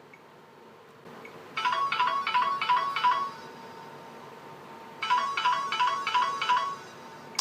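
A Samsung Galaxy Ace GT-S5830 ringtone played on the phone: a burst of about five quick electronic two-note chirps, a pause of nearly two seconds, then the same burst again.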